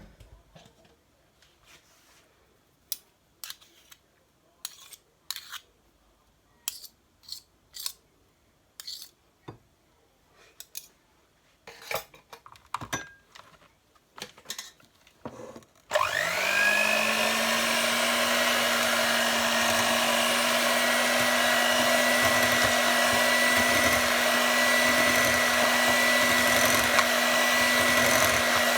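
Scattered light clicks and knocks for the first half, then an electric mixer switches on about halfway through, spinning up to a steady motor whine as it whisks the whipped cream with caramel and grated chocolate.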